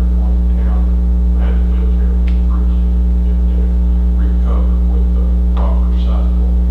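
Loud, steady electrical mains hum on the recording, with faint, indistinct voices underneath.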